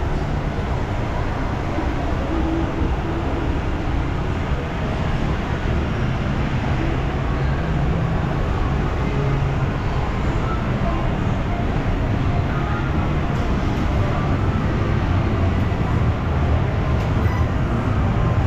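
Steady low rumble of shopping-mall background noise with indistinct shoppers' voices mixed in.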